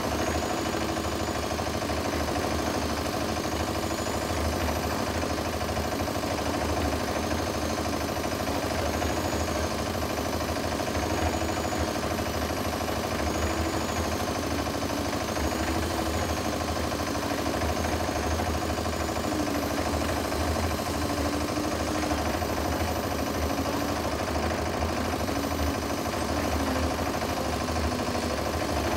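Diesel engine of a cement mixer running steadily.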